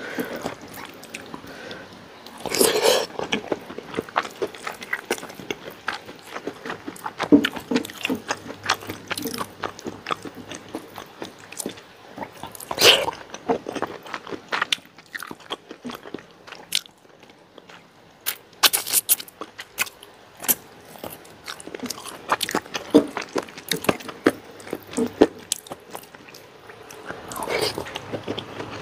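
A person chewing and biting a meal of rice and fried chicken eaten by hand, close to a clip-on microphone: wet smacking mouth sounds with crisp crunches throughout, a few louder bites standing out.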